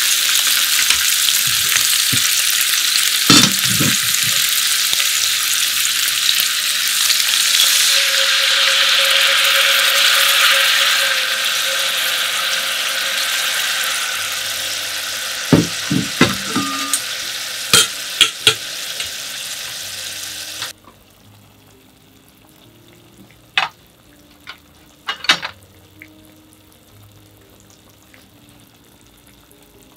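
Beef slices sizzling loudly in a hot sukiyaki pan as they are stirred with a wooden spatula, with a few sharp taps. The sizzling eases, then cuts off suddenly about two-thirds of the way through, leaving a quiet pan with a few light knocks.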